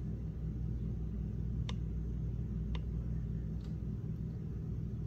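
Steady low background hum, with three faint clicks about two, three and four seconds in.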